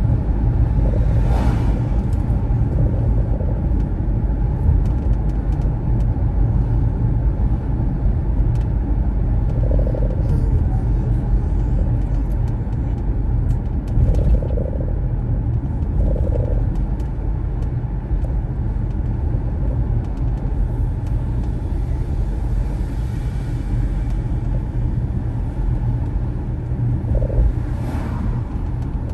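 Car driving on city roads: a steady low rumble of engine and road noise.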